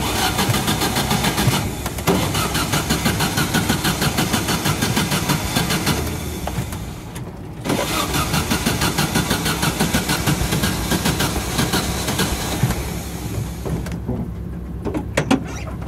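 Dune buggy engine running as the buggy drives along a rough dirt track, heard from the open back seat, with an even fast pulsing. It dips briefly about six seconds in and falls away near the end.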